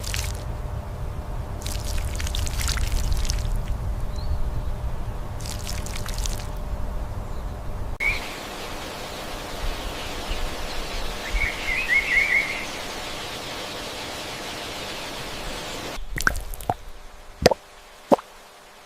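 Water sloshing and splashing over a low rumble, then a steady trickle of running water with a small bird chirping briefly, then a few separate water drops dripping near the end.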